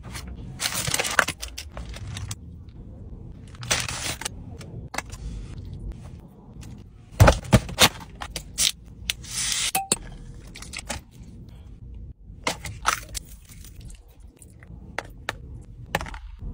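Cardboard pastry box being handled and opened: rustling slides, scrapes and taps in irregular bursts, with a cluster of sharp knocks about seven to eight seconds in.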